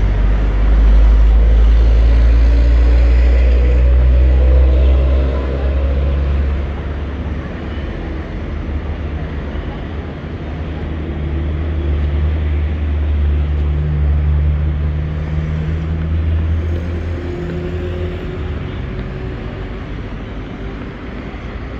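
Motor vehicle engines passing close by in street traffic, with a deep steady engine note. The loudest vehicle passes in the first five seconds; a second one swells and fades through the middle, and the traffic dies down near the end.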